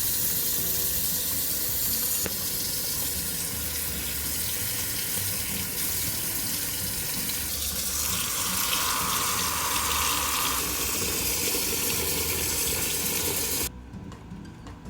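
Water running steadily from a kitchen tap into a sink, shut off suddenly near the end.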